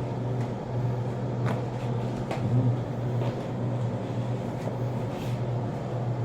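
Steady low mechanical hum, such as a room fan or air conditioner, with a few faint clicks.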